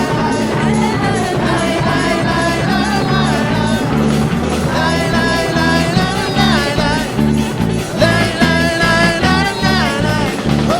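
Live worship band playing an upbeat praise song, with a steady beat, changing bass notes and singing over it.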